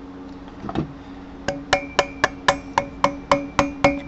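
Hammer blows on a screwdriver driven against the front wheel bearing in a Harley-Davidson Dyna's hub: a quick run of about ten sharp metallic strikes, about four a second, each with a short ring. The bearing is being knocked apart so its inner race can come out.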